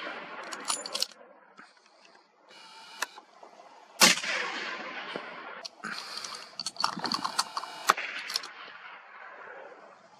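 A single rifle shot about four seconds in, its report echoing away over the hillside for a second or more. Bursts of quick metallic clicks and rattles come before and after it.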